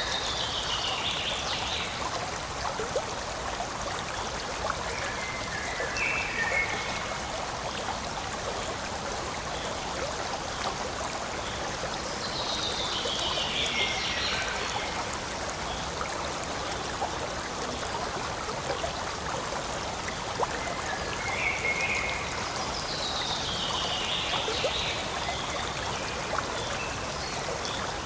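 Forest stream running steadily over rocks, a continuous rushing trickle. A short falling call sounds over it several times, at intervals of a few seconds.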